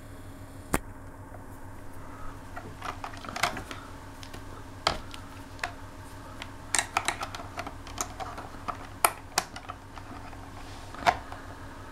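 Irregular small clicks and taps of multimeter test probes and their leads being handled against an electric shower's circuit board and plastic casing, over a faint steady hum.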